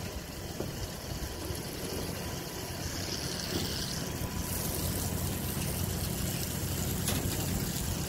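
Diesel engine of a truck-mounted concrete pump running steadily while it hydraulically unfolds and raises the boom, the hum slowly getting a little louder.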